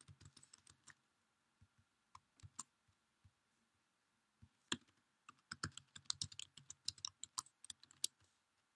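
Faint computer keyboard typing: a few scattered keystrokes in the first seconds, then a quick run of keystrokes from about the middle until near the end.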